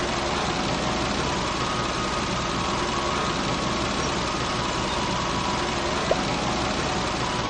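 A steady engine running sound, like a vehicle idling, with a faint tone through it.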